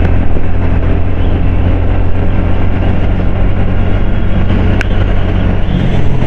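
A TVS Ntorq 125 scooter ridden at highway speed, giving a loud, steady low rumble of wind buffeting the microphone and road noise.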